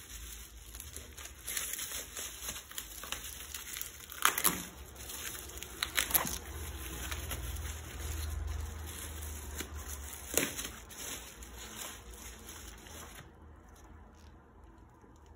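Plastic bubble wrap rustling and crinkling as it is peeled off a magazine by hand, with a few sharper crackles.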